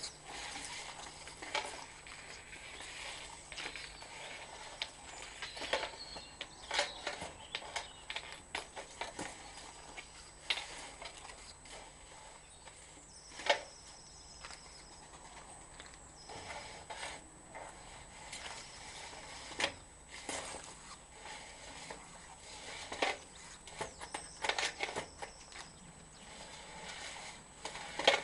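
Irregular clicks, knocks and scrapes of a drain-inspection camera's push rod being fed along the pipe and handled at the reel, a few sharper knocks standing out, over a faint steady high-pitched whine.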